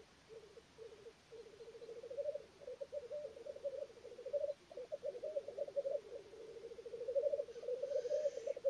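Male black grouse rookooing at a lek: a continuous low bubbling, cooing song, several phrases overlapping and swelling. Near the end a faint hissing note.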